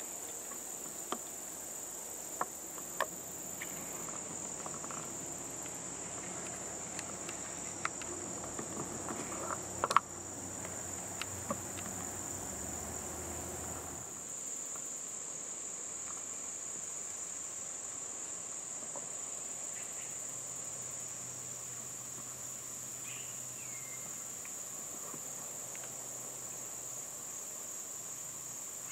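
Steady, high-pitched chorus of insects chirring in the trees. Small clicks and taps come now and then in the first half, with one sharper knock about ten seconds in.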